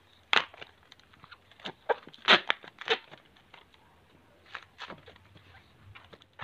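Latex modelling balloon squeaking and rubbing in the hands as it is twisted, a string of short, sharp squeaks at uneven intervals.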